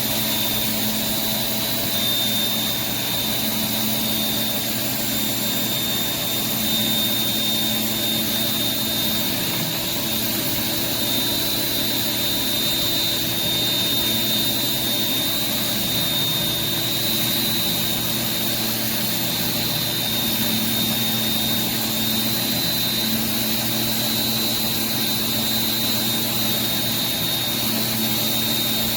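Pressure washer running steadily with a surface cleaner, giving a constant mechanical drone under a high, even whine and the hiss of the water spray.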